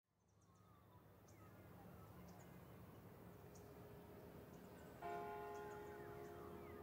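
Faint outdoor ambience fading in, with scattered bird chirps. About five seconds in, a church bell strikes once and rings on, slowly dying away.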